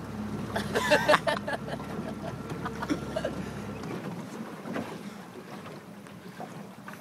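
Small boat's engine running at low speed, its steady low hum cutting off about four seconds in as the boat glides in. A voice calls out briefly about a second in.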